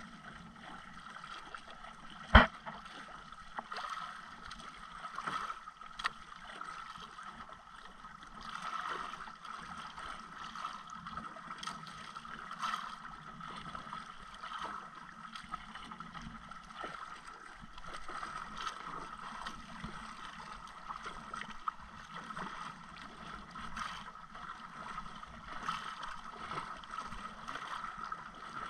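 Water sloshing against a small outrigger boat's hull over a steady hum. There is one sharp knock about two and a half seconds in and a few lighter knocks after it.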